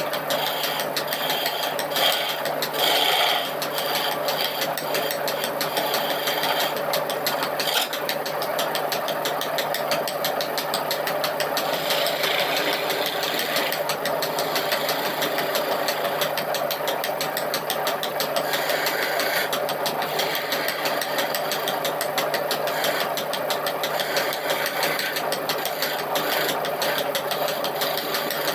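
A handheld electric power tool running steadily while working wood, with a dense rattling texture and a few short louder moments early on.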